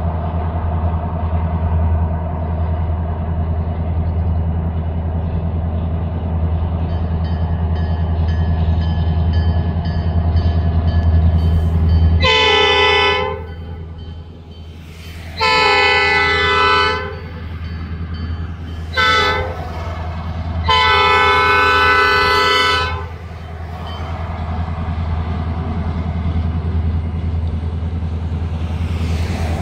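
Diesel freight locomotive's air horn, an Escanaba & Lake Superior SD40-2, sounding the grade-crossing signal of two long blasts, one short and one long. The horn has several chimes. The blasts begin about twelve seconds in, over a steady low hum.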